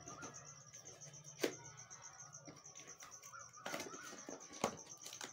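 A small cardboard product box being handled and opened: a few sharp taps and clicks, about a second apart, over a steady high-pitched pulsing trill in the background.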